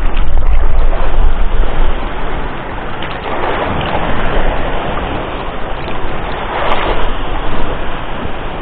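Wind buffeting the microphone over the wash of the sea. The rumble is heaviest in the first two seconds, and two louder surges of wash come near the middle and near the end.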